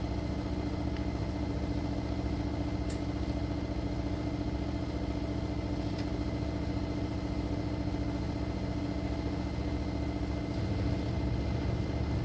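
A steady machine hum that holds one unchanging pitch with a low drone beneath it, with a few faint clicks.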